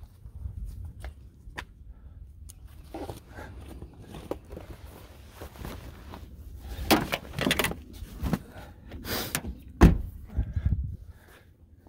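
Rustling and bumping as someone climbs into a car, then the car door shut with one loud thunk about ten seconds in.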